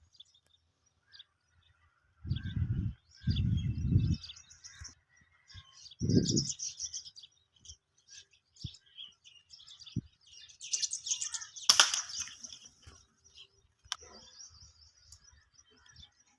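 Birds chirping with small high calls, likely a flock of rosy starlings, over three short low thuds on the microphone in the first half and a louder sharp burst of noise about three quarters of the way through.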